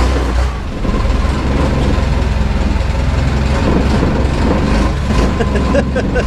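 Canal tour boat's engine running steadily at cruising speed, heard from aboard the boat.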